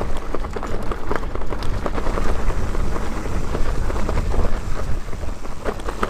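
Mountain bike riding fast down a dirt trail: heavy wind rumble on the microphone under the noise of the tyres on dirt, with frequent sharp rattles and knocks from the bike jolting over bumps.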